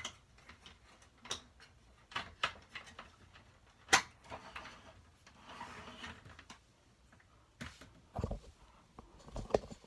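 Scattered plastic clicks and knocks from a Hoover vacuum cleaner and its parts being handled, with a sharp click about four seconds in and a few dull thumps near the end.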